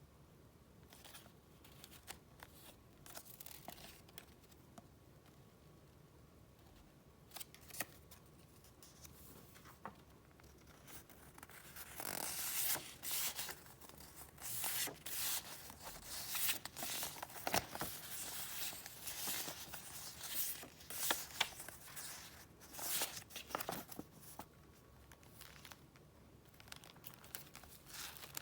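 Paper and packaging being handled: soft scattered rustles and taps at first, then about twelve seconds of louder, busy rustling and crackling that eases off near the end.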